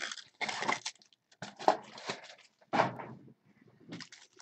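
Trading-card pack wrappers crinkling and tearing, with cards being handled, in about four short irregular bursts as packs are opened.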